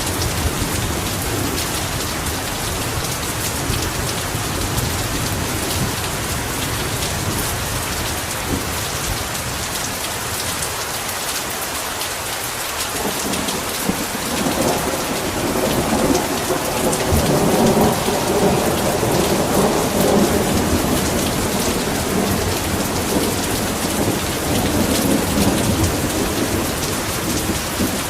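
Heavy rain falling steadily with rolling thunder: a rumble fading away over the first several seconds, then another building about halfway through, loudest around two-thirds of the way and dying down near the end.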